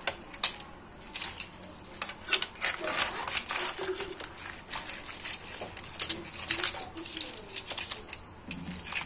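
Metal slotted spatula clinking and scraping in a pan of cooked shrimp and clams as the seafood is stirred, with the shells clicking against each other: a run of irregular clicks and scrapes.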